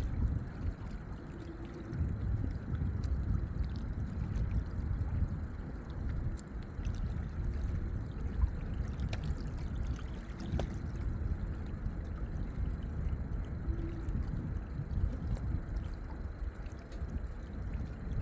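Lake water lapping and sloshing at the shore: a steady, uneven wash with a low rumble, and a few faint small ticks of splashes.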